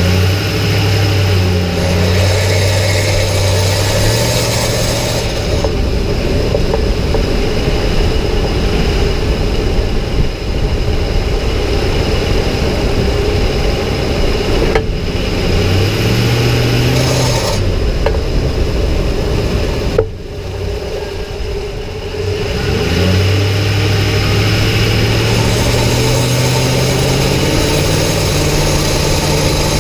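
2006 Ford F-150 pickup driving, with a low drone that comes in three times and rises slowly in pitch while it lasts. It is the unexplained noise the owner hears only on the accelerator, starting around 1200 rpm and getting louder with more throttle and more speed.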